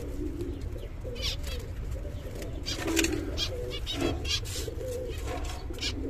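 Pigeons cooing in a low, wavering run of calls, with a few short high chirps from small cage birds mixed in.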